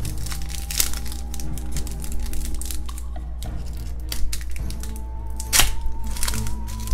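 A foil trading-card pack crinkling and tearing as it is pulled open by hand, with a sharp crackle of the foil about five and a half seconds in, over background music with long held notes.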